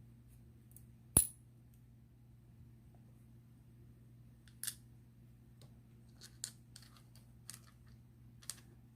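Small metal parts clicking: a sharp click with a short high ping about a second in, then a few lighter ticks, as tiny brass tumbler pins and drivers are worked out of a padlock cylinder with tweezers. A faint steady hum sits underneath.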